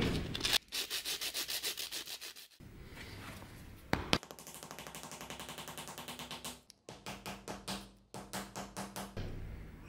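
A small metal ferrule rubbed back and forth by hand on sandpaper, in quick rasping strokes about nine a second. A sharp click about four seconds in, then further runs of rhythmic scraping strokes.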